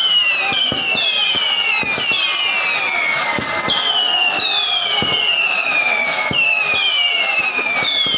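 Firework rockets launching one after another, about ten whistles in all, each falling in pitch over about a second and overlapping the next. Frequent sharp cracks and pops run through it.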